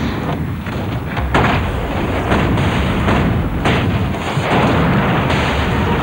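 Battle-scene cannon fire and explosions: several sharp blasts over a continuous dense rumble of battle noise.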